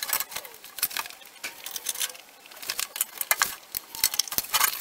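Rapid, irregular metallic clicking and rattling as the fuel tank and its fittings are worked free and handled under the car, thinning out around the middle and busier again toward the end.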